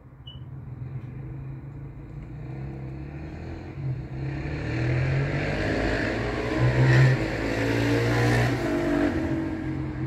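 Road traffic below: a steady low engine hum, then a motor vehicle accelerating and passing on the wet road, growing louder from about four seconds in, loudest around seven to eight seconds, then fading.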